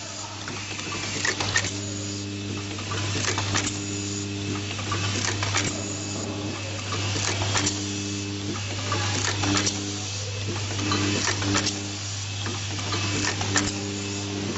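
Automatic pencil sharpener assembly machine running: a steady low hum under a buzz that cuts in and out about once a second, with repeated sharp clacks from its pneumatic cylinders and tooling as the rotary table indexes and presses parts.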